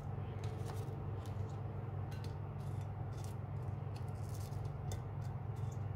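Apple slices being set down one by one in a glass baking dish, faint light taps on the glass, over a steady low hum.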